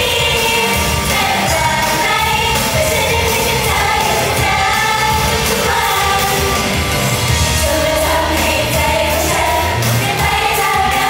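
Live Thai pop song: several young female voices singing together into handheld microphones over loud, continuous pop backing music.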